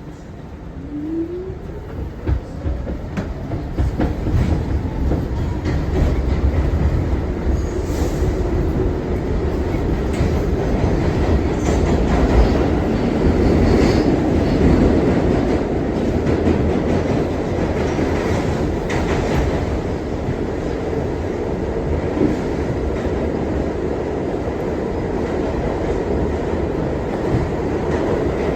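R62 subway train pulling away and gathering speed: a motor whine rises in pitch in the first couple of seconds as the running noise builds, then the train runs steadily at speed with wheel clatter and clicks over the rail joints.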